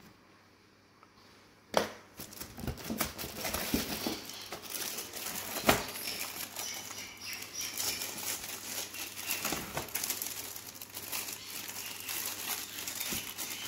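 Clear plastic wrapping crinkling and rustling as a keyboard is handled and pulled out of its cardboard box. It starts suddenly with a sharp crackle about two seconds in, keeps going with many small crackles, and has another loud crackle near the middle.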